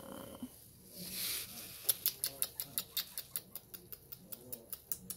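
Pomeranian puppy licking and mouthing a hand, a quick run of small clicks about five or six a second that starts about two seconds in.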